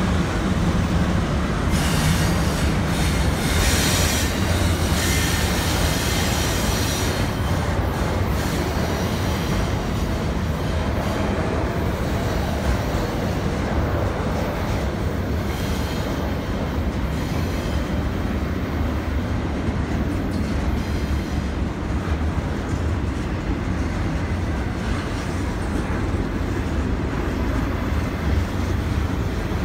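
Double-stack intermodal freight cars rolling past on a curve: a steady low rumble of wheels on rail, with high wheel squeal coming and going, strongest a few seconds in.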